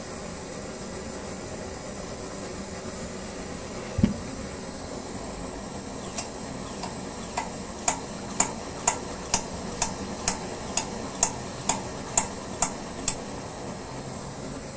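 Kerosene pressure stove's burner hissing steadily. A thump comes about four seconds in, then sharp clicks about two a second for some seven seconds as the stove is worked by hand, likely pumped to keep up tank pressure.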